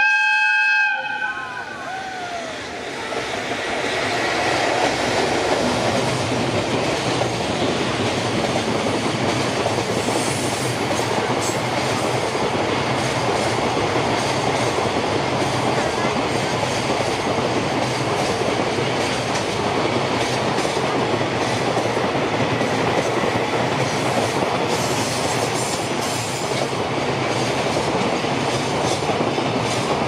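Electric freight locomotive's horn sounds once, about a second long, its pitch dropping as it ends. A long container freight train then runs past with a steady rumble of wheels on rail and scattered clicks.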